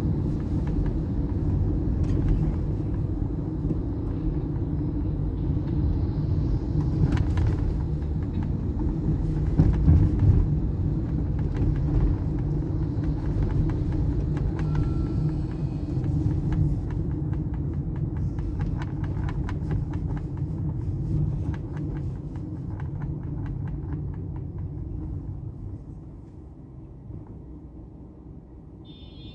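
Car driving on city roads, heard from inside the cabin: a steady low rumble of engine and tyre noise that drops away over the last few seconds.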